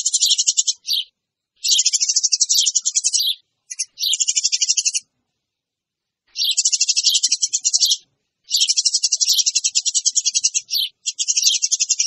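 Eurasian tree sparrows chattering noisily: fast, rattling runs of high chirps in about six bursts of a second or two, with short pauses between them, the kind of chatter used as a lure call to draw sparrows in.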